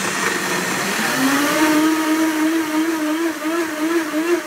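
Blendtec blender running on its soup cycle, really loud, blending vegetables and water into soup. About a second in, its motor speeds up to a higher pitch that then wavers up and down a few times a second.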